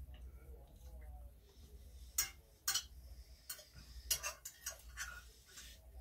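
Cutlery clicking and clinking against plates and dishes during a meal: a handful of separate sharp clicks.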